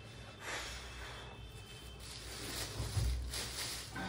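Rustling and handling noises as a shopping bag and its contents are handled, with a low bump about three seconds in.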